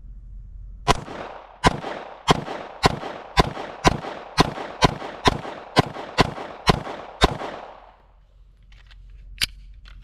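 Thirteen shots from a compensated Shadow Systems CR920P 9mm micro-compact pistol, fired in a steady string of about two a second; each sharp crack trails off briefly. A single sharper snap follows about two seconds after the last shot.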